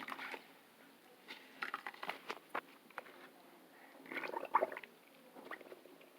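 A wet foam squishy toy being squeezed and handled while it is washed, giving irregular squelches and soft clicks in two clusters, about a second in and about four seconds in.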